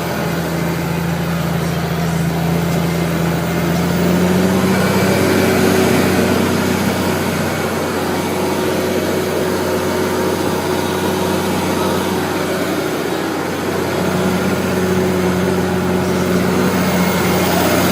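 Tractor engine running steadily, its note shifting slightly about four seconds in and again near the end.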